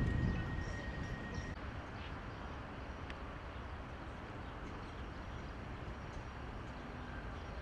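Steady low outdoor background rumble, with a few faint ticks and a faint thin whine that stops about one and a half seconds in.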